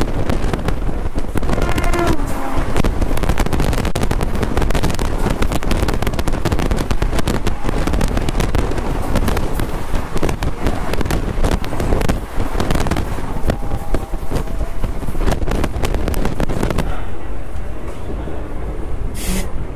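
Indian Railways passenger train running, heard from inside the coach: a dense, continuous clatter and rattle of wheels on the rails with rushing noise. The clatter thins out near the end.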